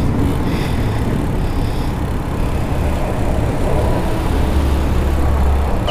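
Wind buffeting a clip-on microphone on a moving bicycle, a steady low rumble with road noise, growing stronger about four and a half seconds in.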